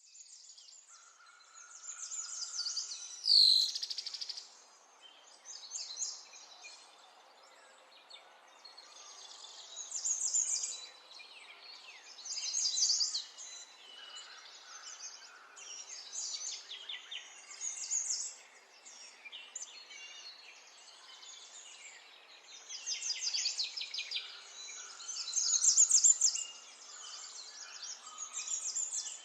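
Songbirds singing, with repeated bursts of rapid high trills and chirps. About three seconds in there is a brief, loud falling sweep.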